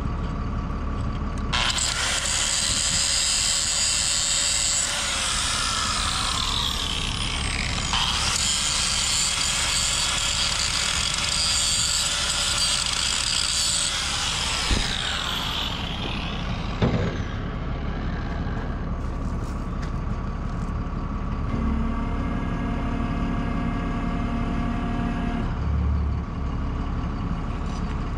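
Crane hoist running as a heavy bulldozer track roller is lowered on its sling: a high machine whine for about fourteen seconds that then winds down, later a shorter, lower steady hum and a dull thump near the end, over a steady engine idle.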